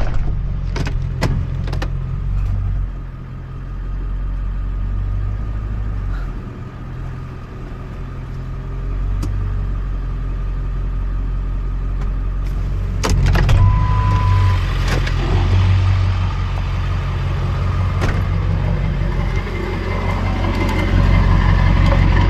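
Truck engine running at low speed as it backs a dump trailer up a short distance, the rumble rising and easing, with a few clicks and knocks. A short beep sounds about 14 seconds in.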